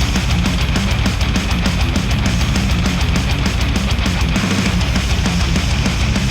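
Heavy rock instrumental with distorted electric guitar and a steady driving beat, played back through Audeze MM-500 planar magnetic headphones and recorded by microphones at the earcups.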